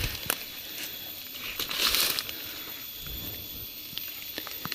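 Footsteps and brushing through dry leaf litter and undergrowth, with scattered crackles of twigs and leaves and a louder rustle about two seconds in.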